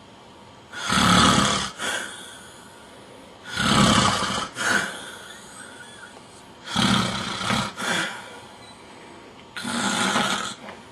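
A man snoring heavily: four loud snores about three seconds apart, each ending with a short second burst.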